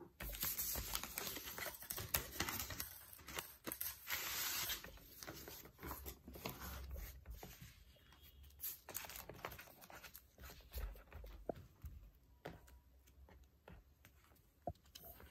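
Paper envelope rustling and crackling as a stack of banknotes in clear plastic sleeves is pulled out, loudest for the first five seconds. Then softer crinkling of the plastic sleeves and light clicks as the notes are handled and squared up on a laptop lid.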